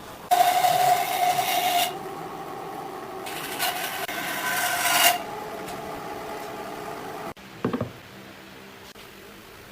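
Two long rasping strokes of a tool working wood, each about a second and a half, then a short lower knock near the end.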